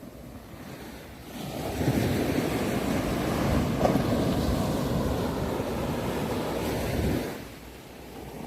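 Ocean waves on a shore: a low rumble swells a little over a second in into a rush of surf that lasts several seconds, then falls away near the end.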